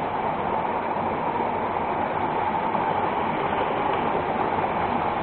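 Waterfall rushing: a steady, unbroken rush of falling water.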